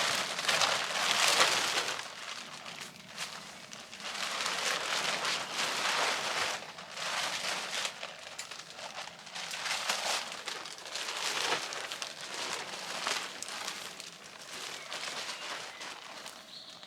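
Tarp rustling and crinkling as it is handled and pulled over a ridge line, in irregular louder and softer stretches.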